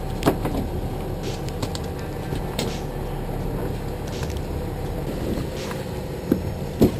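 A boat engine runs with a steady low rumble. Over it come a few sharp clicks and snips from cutting a whitelegger crab with scissors and hooking it on a jig; the loudest click comes near the end.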